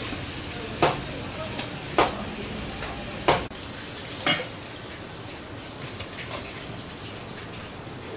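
Four sharp knocks and clacks at a fish-cutting counter as a large Spanish mackerel is handled on stainless steel and a cutting board, about a second apart in the first half, over a steady hiss of background noise.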